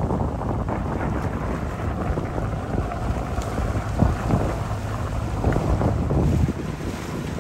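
Strong wind buffeting the microphone in a steady low rumble, over choppy water splashing.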